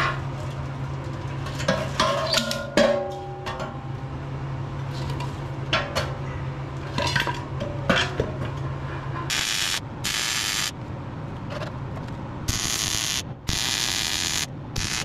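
Sharp clanks and knocks of a steel bracket being set against an empty steel air-compressor tank. About nine seconds in, several short bursts of MIG welding crackle start and stop sharply as the bracket is tack-welded onto the tank.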